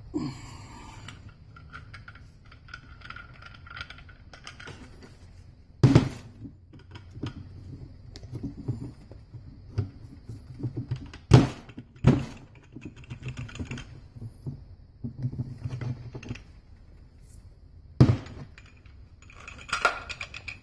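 Steel front clutch drum of a 1955 Oldsmobile Hydra-Matic being worked and jiggled on the splined intermediate shaft: irregular metallic clicks and rattles as the composition plates' teeth are brought into mesh with the gear, with four sharp metal clunks along the way.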